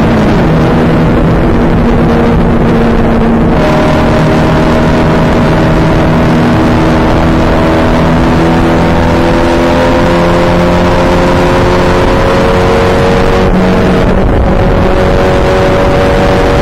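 Engine of a small open-wheel race car heard from its own cockpit under wind noise, running hard at racing speed. The pitch dips near the start, then climbs slowly as it pulls along the straight, with a short break and step in pitch about fourteen seconds in.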